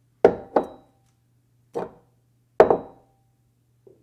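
A series of sharp percussive hits, each dying away quickly, some with a brief faint ring: two in quick succession early, one near two seconds, the loudest just past two and a half seconds, and a small one near the end. A low steady hum runs underneath.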